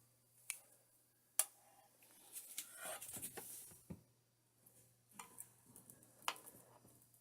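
Handling noises: a few sharp clicks and stretches of rustling, as of small parts being handled, over a faint steady low hum.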